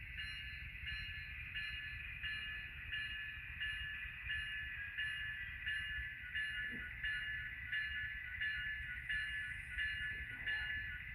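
Model diesel locomotive sound from an ESU LokSound decoder in a Kato N-scale locomotive, played through its tiny onboard speaker. It is a steady running sound that pulses about three times every two seconds, over a low rumble.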